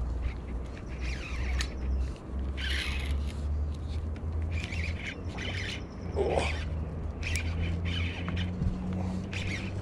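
A bird squawks a few times, loudest about six seconds in, over the scratchy clicks of a baitcasting reel being cranked as a hooked fish is wound in. A steady low hum runs underneath.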